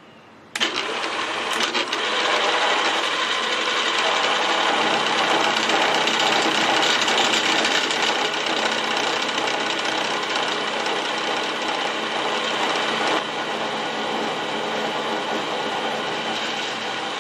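Vertical milling machine's end mill cutting the top off a metal bar clamped in a vise, starting abruptly about half a second in. It is a loud, steady machining noise with several whining tones, dropping a little in level about two-thirds of the way through.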